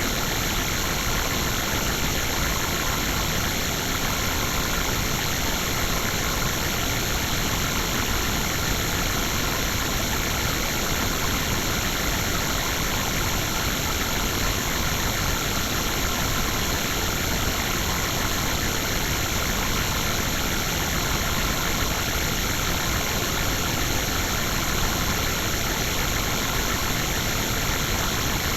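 Digitally processed sound effect: a steady, dense, engine-like buzzing noise that keeps an even loudness and does not change.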